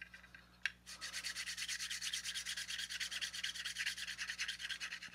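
Plastic model-kit part being hand-sanded with quick, even back-and-forth strokes of abrasive on styrene, starting about a second in after a single click.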